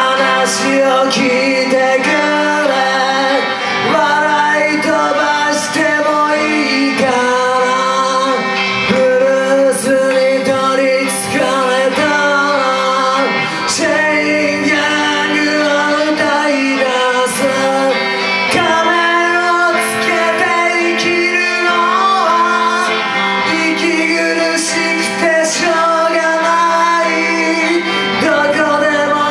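Live rock band playing: a male voice singing over electric guitar, bass guitar and drums.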